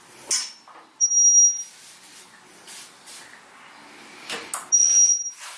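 A car jack squeaking as it lifts the rear of a Jeep Wrangler under load: two short, shrill squeals, about a second in and again near the end, with a few light knocks between them.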